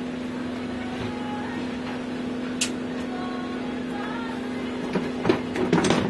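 A steady low hum with a single sharp click a little before halfway, then a clatter of metal tools knocked and moved about on a wooden workbench near the end.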